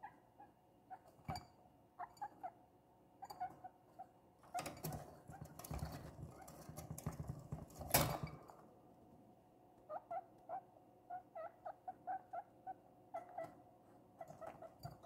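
Guinea pig giving short, repeated squeaks. About halfway through, a louder rustling scramble in wood-shaving bedding ends in a sharp knock a few seconds later.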